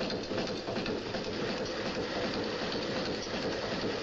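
Charcoal forge fire crackling and hissing steadily.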